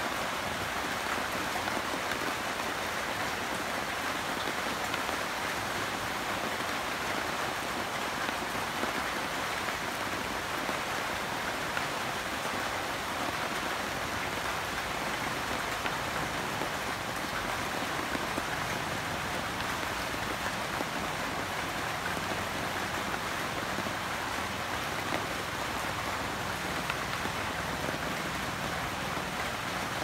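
Steady rain falling on trees and broad leaves, an even hiss that holds without a break.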